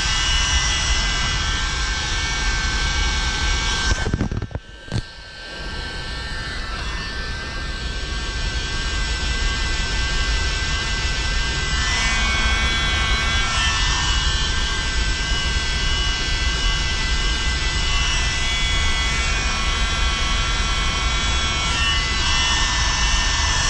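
Electric heat gun blowing steadily, a loud fan rush with a high motor whine, as it shrinks heat-shrink tubing onto the shifter spring. It cuts out briefly about four seconds in and starts again.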